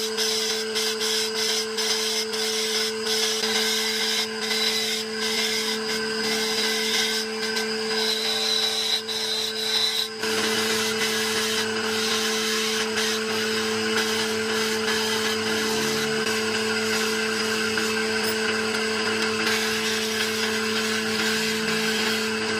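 A power tool running at a steady pitch while working wood, with scraping and light clicks over the motor hum; the sound changes abruptly about ten seconds in.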